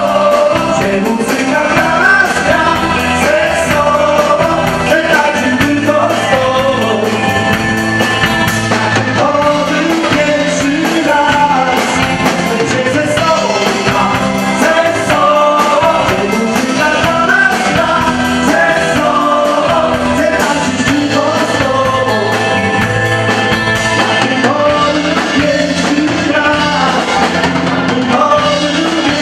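A dance band playing a song: a singer over a drum kit keeping a steady beat, with electric guitar.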